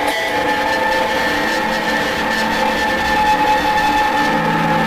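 Intro music: a steady drone of several held tones over a dense hiss, with a lower note joining near the end.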